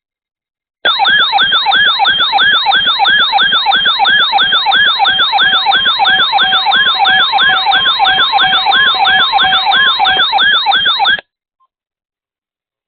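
Electronic emergency alert siren: a loud, fast rising-and-falling wail of several layered tones, about three sweeps a second. It starts abruptly about a second in and cuts off sharply after about ten seconds.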